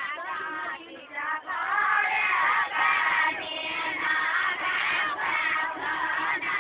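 A group of women singing a Deuda folk song together in unison, holding long notes; the chorus swells to full strength about a second and a half in.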